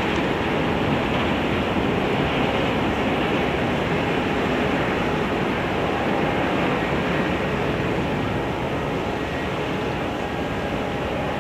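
Steady rumbling noise of strong wind on the microphone mixed with the Kuroshio Maru ferry's engines running as it manoeuvres alongside the pier, with faint steady hums; it eases a little near the end.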